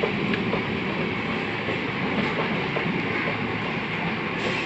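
An EMU local train's coaches passing close by at speed: a steady noise of wheels running on the rails, with faint clicks here and there.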